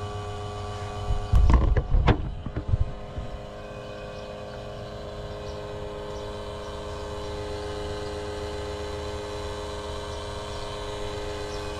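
Smoke machine running with a steady electric hum during a smoke test for an intake vacuum leak, with a few loud bumps and knocks about a second in.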